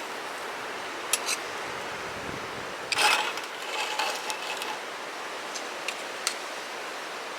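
Steady rush of wind and surf on a beach, with a few light clicks and a brief clatter of handled objects about three seconds in.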